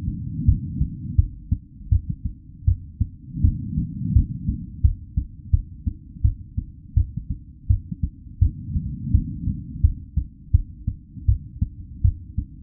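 Real human heartbeat at a normal resting rate: a steady run of low, dull lub-dub thuds. Under it, a low rushing noise swells and fades every few seconds.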